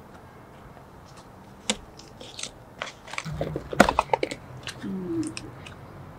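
A cardboard pizza box being handled and its lid opened: scattered taps, creaks and rustles of the cardboard, with a quick cluster of sharp clicks about four seconds in as the lid comes up. A faint low hum runs underneath in the second half.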